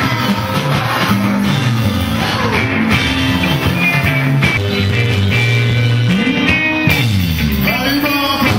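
Live band playing: electric guitars over bass and drums, with singing. The bass slides up and back down about two-thirds of the way through.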